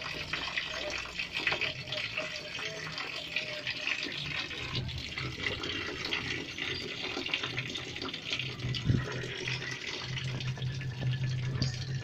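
Many lovebirds chattering together in a dense, continuous high-pitched twitter.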